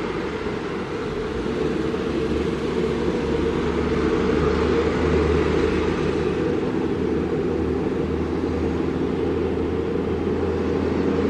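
Heavy truck's diesel engine running steadily under way, with a low, even drone.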